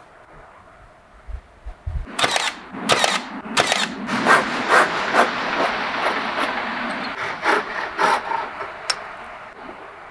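Hand saw cutting across a thin timber strip, a run of rasping strokes at about two a second starting about two seconds in and stopping near the end. A few soft low knocks come just before the sawing begins.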